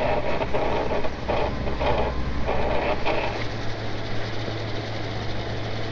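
Footsteps crunching in snow, about two a second for the first three seconds, over a vehicle engine idling steadily.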